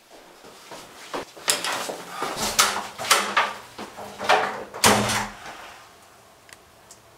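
A door being handled: a run of knocks and clatters over about four seconds, with a heavier thud about five seconds in.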